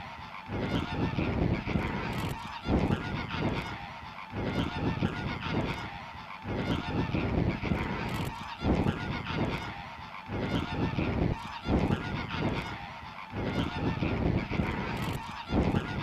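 A large flock of greater flamingos honking, a dense unbroken chorus of many overlapping calls.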